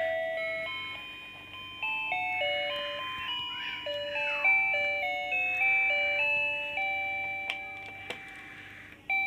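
Background music: a simple electronic melody of plain beeping notes stepping up and down, each fading after it sounds, in a chime-like, music-box style. Behind it there is a soft scratchy hiss of felt-tip markers colouring on paper, and two short clicks come near the end.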